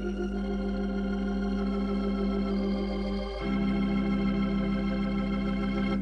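Organ music: slow sustained chords, moving to a new chord about three and a half seconds in.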